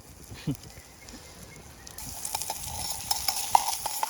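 Salami frying in a steel cup over a small wood-burning stove: a sizzling hiss with scattered pops that starts suddenly about halfway through.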